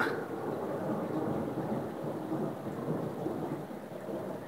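Thunder rolling in a long, deep rumble that slowly dies down.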